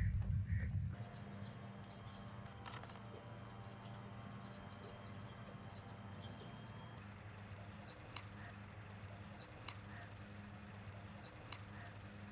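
Faint outdoor ambience: scattered bird chirps and insects over a low steady hum, with a few light clicks. The first second is louder, then the sound settles.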